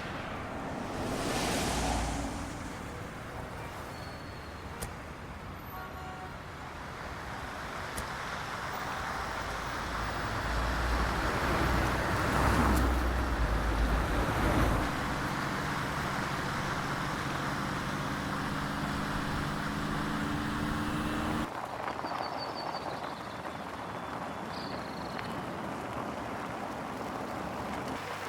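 Layered film sound effects: a steady rushing, traffic-like noise with a brief whoosh about a second in and a louder rumble around the middle. A low steady hum then joins and cuts off abruptly about three quarters of the way through, leaving a quieter background noise.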